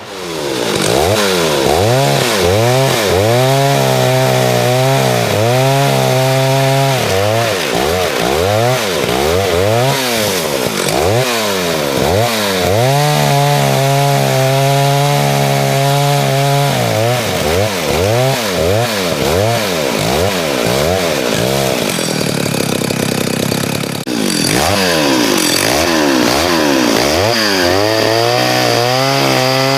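1974 Stihl 075 AV chainsaw, a big 111cc two-stroke, running loud and being revved up and down again and again. Several stretches are held at high revs, as when cutting small logs.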